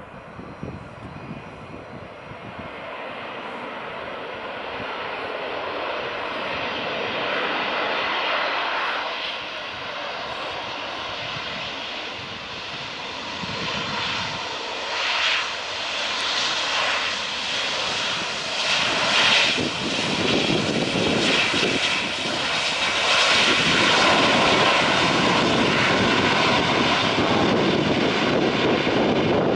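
Airbus A320 airliner's jet engines during its landing roll on the runway, the noise growing steadily louder as the plane draws nearer.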